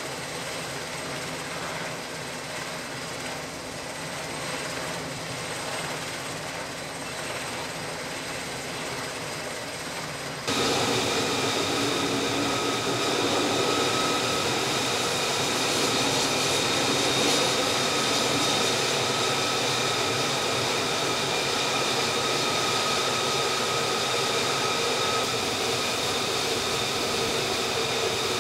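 F-35C's single F135 turbofan engine running on the flight deck: a steady jet rush with high whining tones, jumping louder about ten seconds in.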